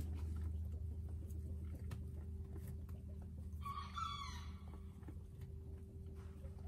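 A chicken calls once, about four seconds in, a short call of under a second, over a steady low hum. Faint clicks and rustles of sheep pulling hay from a wooden rack feeder sound throughout.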